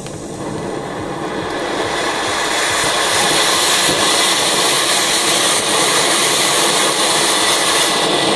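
Anar clay-pot fountain fireworks burning under a plate: a loud, steady rushing hiss of spraying sparks that builds over the first few seconds, then holds.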